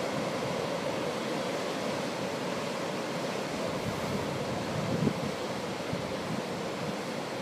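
Sea surf washing onto a beach, a steady rushing noise, with wind buffeting the microphone. It turns briefly louder and lower about five seconds in.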